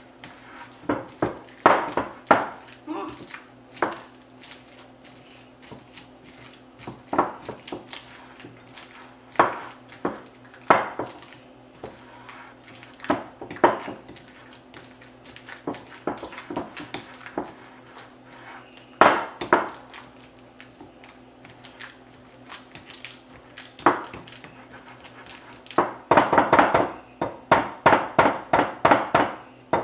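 Bananas being mashed in a bowl: a utensil knocking and scraping against the bowl in irregular strokes, ending in a fast run of knocks of about five a second.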